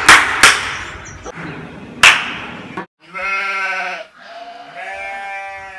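A few sharp hand claps, one right at the start, another half a second later and a last one about two seconds in, followed by two drawn-out, wavering cries of about a second each.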